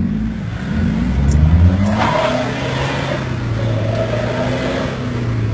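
Off-road 4x4 engine revving hard as the vehicle climbs a steep loose dirt bank, pitch rising over the first two seconds and then held at steady high revs. A burst of hiss comes in about two seconds in.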